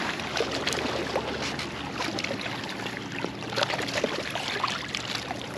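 Water sloshing and trickling with scattered small clicks and rustles, as a fishing magnet on its rope is hauled up out of the water.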